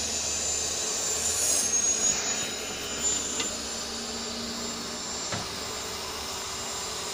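Steady machine drone with a high, unchanging whine over it, and a few light clicks.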